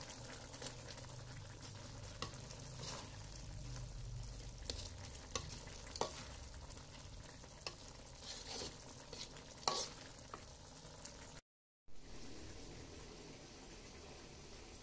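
Green beans, squid and sliced red chillies sizzling as they are stir-fried in an aluminium wok. A metal ladle scrapes and clinks against the wok about eight times as the food is tossed. About two-thirds of the way through the sound cuts out abruptly and returns as a quieter steady hiss.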